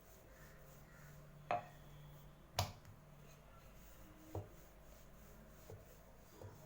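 Rolling pin working a ball of maida dough on a chapati rolling board: a handful of short, sharp knocks of the pin against the board, the loudest about two and a half seconds in.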